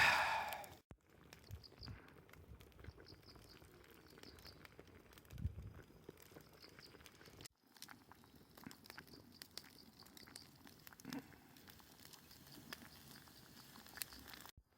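Wood fire crackling, with scattered sharp pops and clicks, in several short clips cut together; a louder brief rustle at the start.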